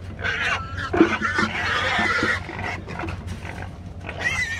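Trapped wild hogs squealing, with one long squeal about a second and a half in and another shorter one near the end.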